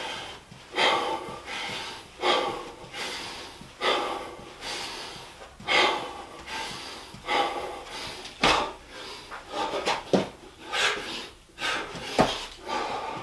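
A man panting hard, with heavy breaths about every second and a half, winded from exertion while running in place between burpees.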